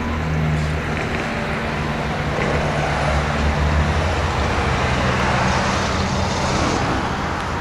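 Embraer 145 regional jet's twin rear-mounted Rolls-Royce AE 3007 turbofans roaring steadily as the plane rolls out on the runway just after touchdown, swelling a little in the middle and easing off near the end.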